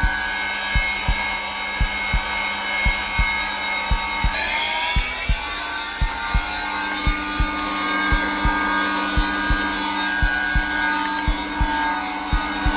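Zelmer vacuum cleaner running on its lowest power setting, a steady motor whine and hum whose pitch rises slightly about four seconds in. Mixed over it is a heartbeat, regular low double thumps, used together as a soothing noise for a baby.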